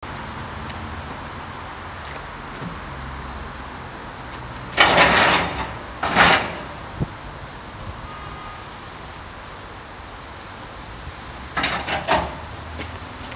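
Empty 1000-litre IBC tote in a galvanised steel cage being shoved and turned on asphalt, scraping and rattling in short bursts: two about five and six seconds in, and a cluster near the end.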